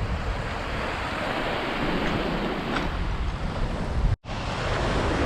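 Ocean surf washing on the shore with wind buffeting the microphone, a steady rushing noise that drops out abruptly for an instant about four seconds in.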